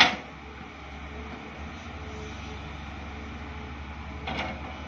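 Hydraulic excavators' diesel engines running steadily as they dig, with a deep low throb. A sharp, loud knock comes right at the start and a softer one about four seconds in.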